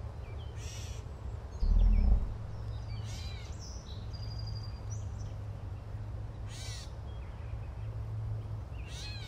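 Forest ambience: birds chirping every few seconds over a steady low hum, with one short low rumble about two seconds in.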